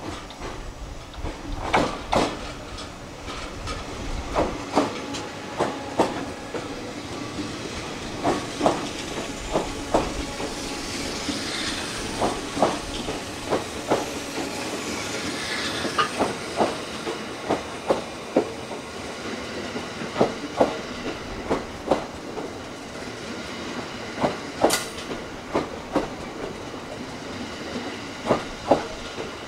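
TRAIN SUITE Shiki-shima (JR East E001 series) pulling in past the platform, its wheels clacking in pairs over the rail joints every second or two over a steady hiss of the moving train.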